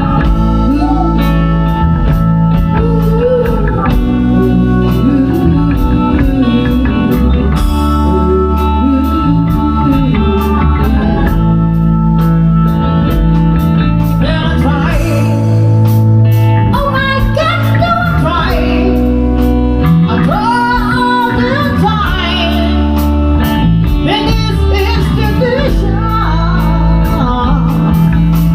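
Rock band playing live: electric guitar, bass and drums, with singing.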